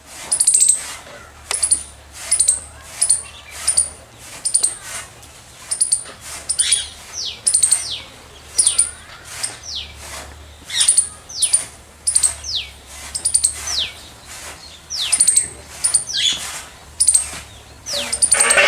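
Squirrel chirping in a steady run of short, high, sharp calls, about two a second. Many of the calls carry a quick falling sweep, and one call near the end is louder and harsher.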